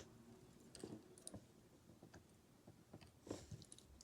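Faint, scattered clicks and light taps of small lock pins and parts being handled, with one sharper click at the start.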